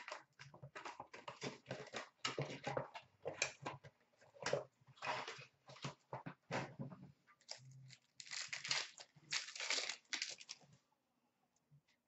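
Plastic wrapping and foil hockey card packs crinkling and tearing in irregular bursts as a card box is opened and its packs handled, stopping near the end.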